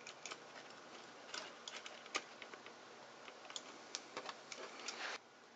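Irregular small clicks and taps from handling the opened cassette recorder's circuit board and wiring, over a faint hiss that cuts off suddenly about five seconds in.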